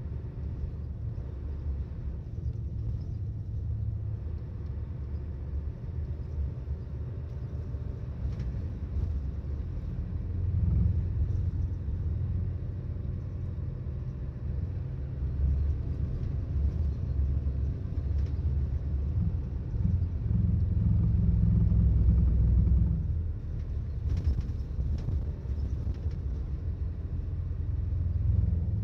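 Diesel engine of a Volvo 8700 bus running, heard from inside the bus: a deep, low drone that grows louder about ten seconds in and again for a few seconds past the middle, then eases off.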